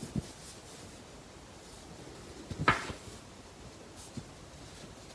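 A paper quick-start booklet handled in gloved hands and turned over: a soft thump just after the start, a louder brief paper-handling noise about two and a half seconds in, and a small tap a little after four seconds.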